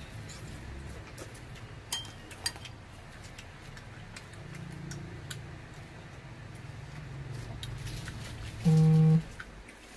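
Eating from a self-heating hotpot: small clicks of a metal fork against the foil bowl, with two sharper clinks about two seconds in. Near the end comes a short, loud hum at one steady pitch, lasting about half a second.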